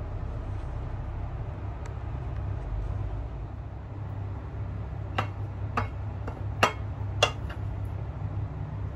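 Rice being scooped out of a rice cooker's inner pot onto a ceramic plate: four sharp clinks of the utensil against the pot and plate, about five to seven seconds in, over a steady low hum.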